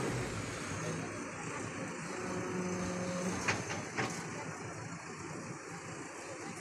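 JCB 3DX backhoe loader's diesel engine running steadily while the front loader bucket is raised on its hydraulics. Two sharp knocks come about half a second apart near the middle.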